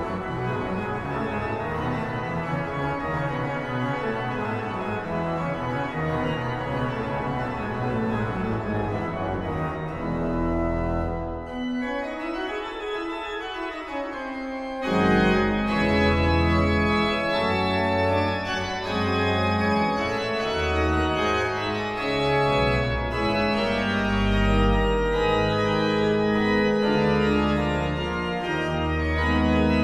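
Organ music playing slow, held chords. A thinner, quieter passage comes about twelve seconds in; from about fifteen seconds the chords come back fuller and louder, over a deep bass line.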